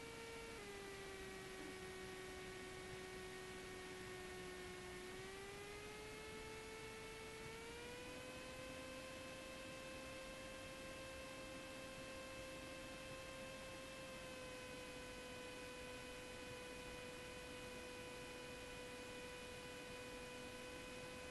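Faint hum of the Cessna 172's engine carried through the headset intercom, its pitch following engine speed as power is adjusted on final approach. It drops about half a second in, climbs again over a few seconds from about five seconds in, and eases slightly down about fourteen seconds in.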